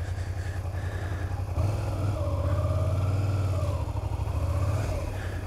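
Sport motorcycle engine running under the rider, heard from a helmet camera; about a second and a half in the throttle opens and the engine note climbs and holds, then falls back and settles near the end.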